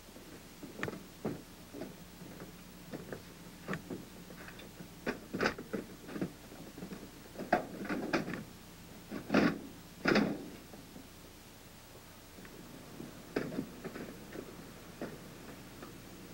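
Irregular metal clanks and knocks from cargo rail and roller assemblies being handled and set into place on a helicopter cabin floor, the two loudest a little past the middle.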